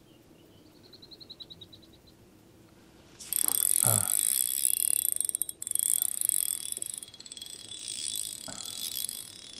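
Fishing reel being cranked: a brief run of soft fast ticks, then from about a third of the way in a steady high whirr of the reel's gears with very fine rapid clicking as line is wound in.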